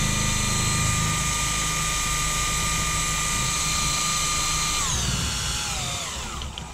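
Cordless drill spinning a BMW K100 alternator on the bench, a steady high whine while it drives the alternator, which is charging at about 13 amps. About five seconds in the drill is let off and its whine falls away in pitch as it spins down.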